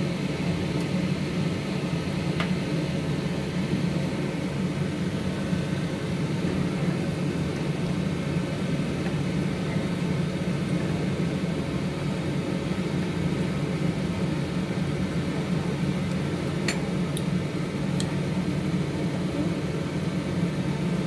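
A steady mechanical whir in the kitchen, even and unchanging, with a few light clicks of a utensil against the wok, about two and a half seconds in and twice near the end.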